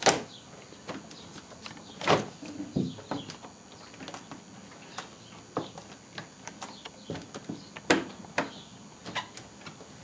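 The plastic back panel inside a Samsung RSH1 fridge compartment is pushed and fitted into place by hand, giving a scattering of irregular plastic clicks and knocks, the sharpest about two seconds in and about eight seconds in.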